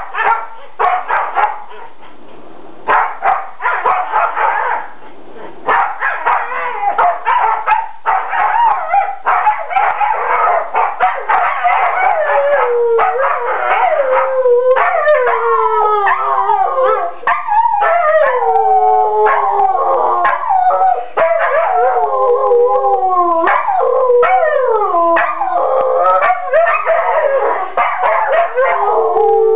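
Two dogs play-fighting with rough barks and yips, then, about halfway through, howling together in long, overlapping howls that slide down in pitch.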